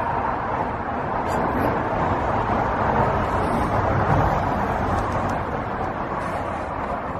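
Road traffic on a highway: a steady rush of passing vehicles that swells a little in the middle and eases off again.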